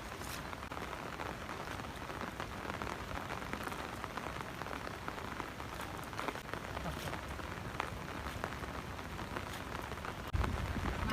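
Steady rain falling, with many small drops ticking on surfaces. About ten seconds in the sound turns suddenly louder, with more low noise.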